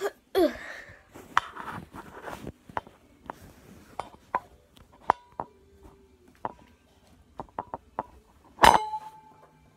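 Metal bunk bed frame knocking and clinking as someone climbs up to the top bunk, with scattered sharp clicks and a loud ringing clank near the end.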